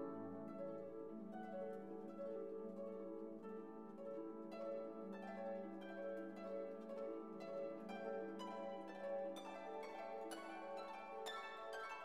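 Instrumental background music: plucked string notes over a held low tone, the plucked notes coming thicker and brighter in the second half.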